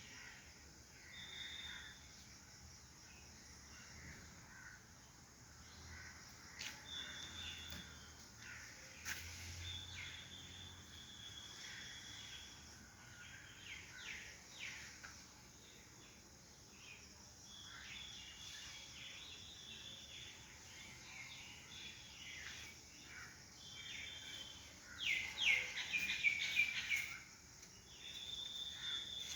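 Birds calling over a faint background hiss: short, thin, high notes here and there, with a louder run of rapid chirps near the end.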